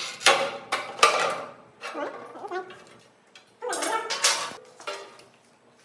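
Manual rail tile cutter and a large ceramic tile being worked: a run of sharp clinks and scrapes of metal and ceramic with brief ringing, loudest in the first second and again a little before four seconds in.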